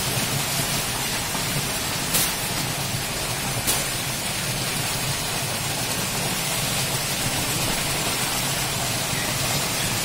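Muddy water gushing up out of a borehole and splashing over sandbags, a steady rushing noise with a low steady hum beneath it. Two sharp knocks come about two and three and a half seconds in.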